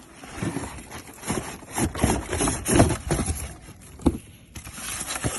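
Cardboard box and packaging of a small RC car being handled and opened: irregular rustling and scraping with a few knocks, one sharp knock about four seconds in.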